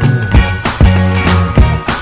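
Background music: an upbeat funk-style pop track with a steady drum beat and bass line, and no vocals.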